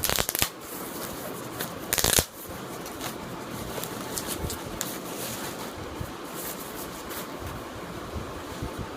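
Packaging being handled: two short, loud rustles, one at the start and one about two seconds in, followed by lighter crinkling and ticking over a steady background hiss.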